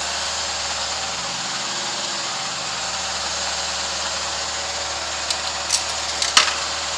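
Miele PT 5145 tumble dryer running with a steady mechanical hum and rush of air. A few light clicks and one sharper knock come near the end.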